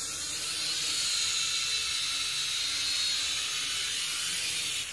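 Syma X5C-1 toy quadcopter's motors and propellers whirring, a steady high hiss with a faint lower hum, as it comes down to land in ground plants. The whir cuts off suddenly near the end as the motors stop on landing.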